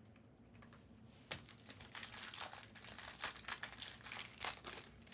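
Crinkling and rustling of a trading-card pack's plastic wrapper being handled, starting with a single click a little over a second in and running as dense crackle until near the end.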